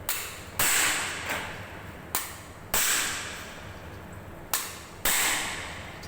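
Hammer blows on a stuck industrial vacuum cleaner motor to free it, about seven sharp strikes, often in pairs, each leaving a bright ring that fades over about half a second.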